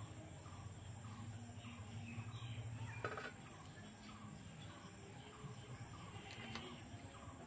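Steady high-pitched insect chirring, with a faint call repeating about twice a second and a light tap about three seconds in.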